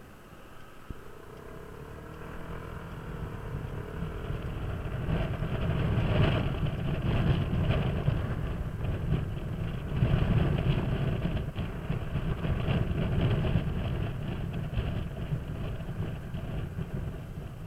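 Kymco Downtown 300i scooter's single-cylinder engine running under way, mixed with wind rushing over the microphone. The rumble builds over the first few seconds as the scooter gathers speed, stays loud through the middle and eases off near the end.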